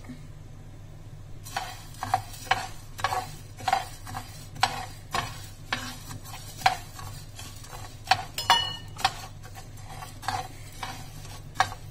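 Metal spoon stirring and scraping dry coriander seeds across a flat griddle pan as they dry-roast. Short scraping rattles come about twice a second, starting about a second and a half in, over a low steady hum.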